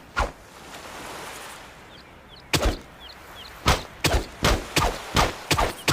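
Machete chopping: sharp hacking strikes, one just after the start, then after a pause about eight more in quick succession, two or three a second, from about two and a half seconds in.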